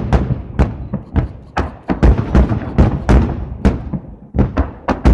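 Fireworks shells bursting overhead in rapid succession: a dense run of deep booms, about three a second, each with a short rumbling tail.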